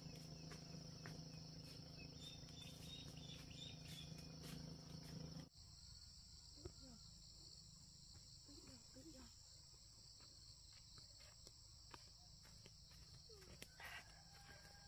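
Faint, steady high-pitched insect chorus, crickets or similar, with scattered light clicks and a few soft short chirps. The background changes abruptly about five and a half seconds in, the insect tone shifting higher.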